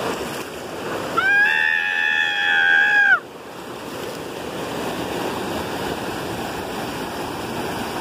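Shallow stream rushing and splashing over rocks at a small waterfall. About a second in, a high, steady tone is held for about two seconds and cuts off suddenly, after which the water is quieter.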